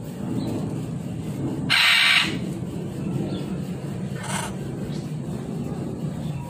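A macaw gives one harsh, loud squawk about two seconds in, then a shorter, fainter squawk a couple of seconds later.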